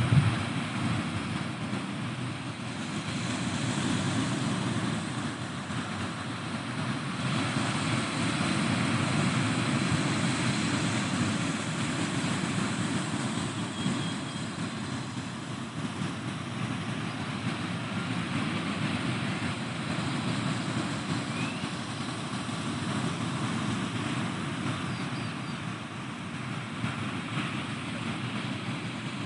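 Pacific Ocean surf washing against the seafront, swelling and easing every few seconds over a steady low rumble.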